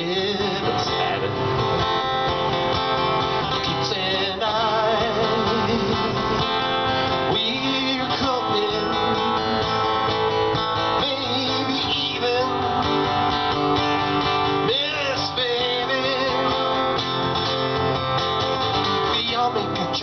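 Acoustic guitar strummed steadily while a man sings along, holding wavering notes several times.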